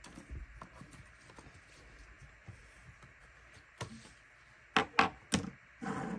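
Cardboard jigsaw puzzle pieces being handled on a tabletop: light taps and clicks as pieces are picked up and set down, with three sharper taps about five seconds in and a short scrape of pieces sliding near the end.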